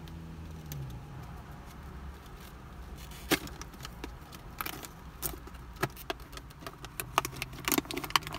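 Plastic toy packaging being opened: a canister's seal is peeled off and a plastic bag is handled, giving scattered sharp crinkles and crackles that come thicker near the end, over a low steady hum.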